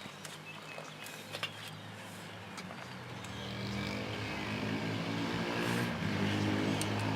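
A motor vehicle's engine running with a low, steady hum, growing louder about three seconds in; a couple of light clicks come before it.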